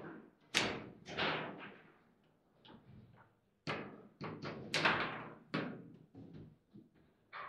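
Table football in play: the ball struck by the figures and knocking against the table's walls, with the rods clacking. A run of sharp knocks at uneven intervals, the loudest about five seconds in.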